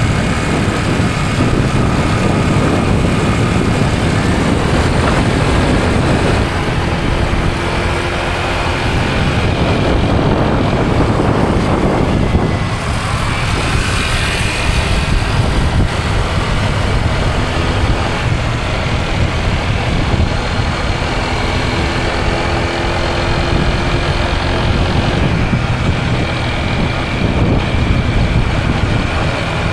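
A motor vehicle driving along, its engine running steadily under continuous road noise.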